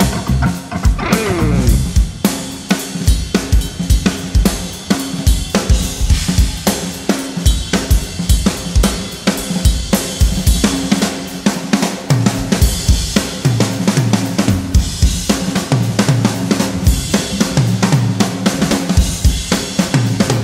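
Live rock drum kit played hard and fast: rapid bass drum and snare hits with hi-hat and crashing cymbals, over sustained low bass notes that change pitch.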